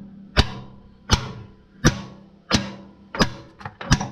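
Heavy hammer blows on a steel drift driving a pin out of a tractor's rear-end housing, sharp metal-on-metal strikes with a short ring, about one every 0.7 seconds. A few lighter taps follow near the end.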